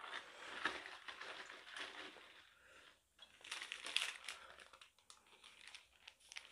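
Thin plastic water bottle, its water partly frozen, crinkling and crackling as it is handled and set upright on a wooden floor. The sound comes in two spells, the second shorter and louder.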